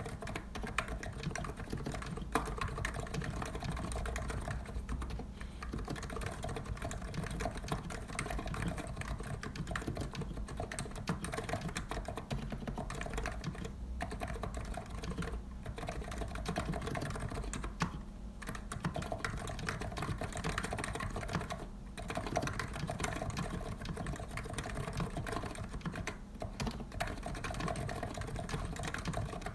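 Continuous fast typing on a COX Empress electro-capacitive (contactless) keyboard with 50 g key weighting, a dense run of keystrokes broken by a few brief pauses.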